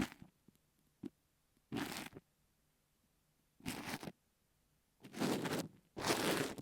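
An ear pick working kinetic sand over an earphone microphone: gritty, crunchy scratching strokes, about five of them, each about half a second long, with short pauses between.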